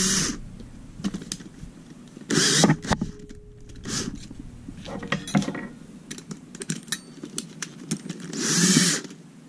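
Cordless drill motor spinning in three short runs of about half a second each: at the start, about two and a half seconds in, and near the end. Between them come scattered small clicks and rattles of the chuck and the metal mixer attachments being handled.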